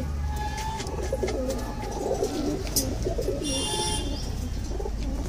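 Domestic pigeons cooing in a crowded loft, many birds overlapping in a continuous wavering coo, with a few sharp clicks.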